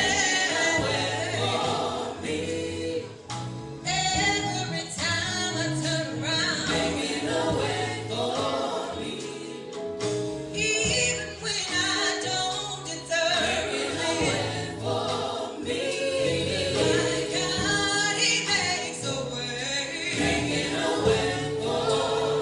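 Gospel vocal group singing in harmony over a steady bass accompaniment.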